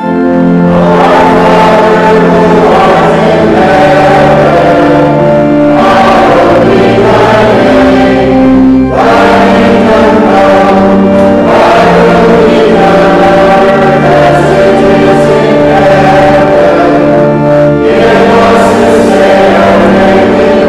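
A church choir sings liturgical music over long, steady held chords from an accompanying instrument.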